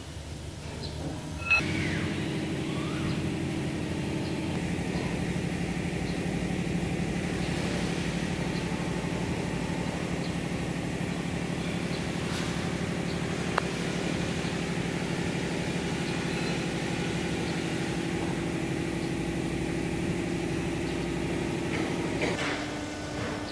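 Hydraulic power unit of a CNC press brake, its Siemens main motor driving the pump, starting with a clunk about a second and a half in and then running with a steady hum and pitched whine. Near the end the tone shifts and the level drops a little.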